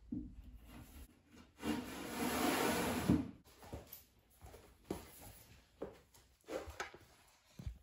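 Flat-pack furniture panels being handled: a board scraping against board for about a second and a half, then a few light wooden knocks.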